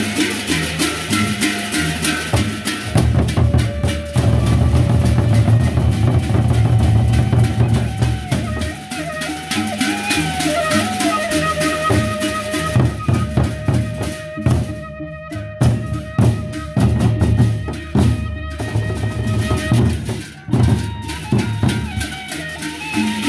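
Sasak gendang beleq ensemble playing: large double-headed barrel drums beaten in fast interlocking rhythms under bright metallic clashes, with a wavering bamboo-flute (suling) melody over the middle. The playing thins briefly about three-quarters through, then picks up again.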